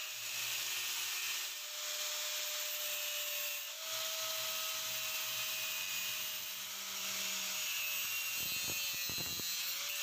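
Angle grinder with a thin cut-off disc cutting through the metal body of an electronic expansion valve held in a vise: a steady grinding hiss over the motor's whine, dipping briefly twice early in the cut.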